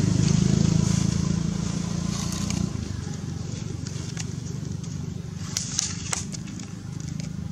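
A motor engine running steadily with a low drone, louder for the first three seconds or so and then dropping back. A few sharp clicks or crackles come about two-thirds of the way through.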